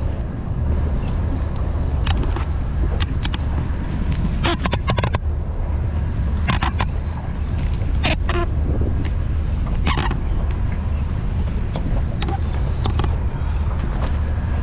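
Strong wind buffeting the microphone: a steady low rumble, broken several times by brief sharp sounds.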